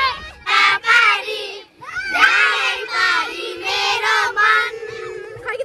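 A crowd of schoolchildren shouting and singing together, their voices loud and excited, in the close space of a packed bus.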